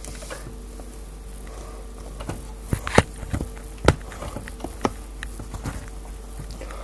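A steady hum with a scatter of sharp clicks and knocks, like something rubbing and tapping against the camera; the loudest knocks come about three and four seconds in.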